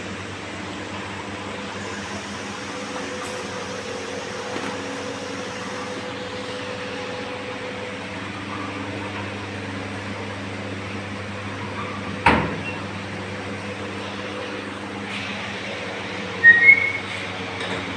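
Steady hum of large laundry machinery. There is a sharp knock about twelve seconds in and two short high beeps near the end.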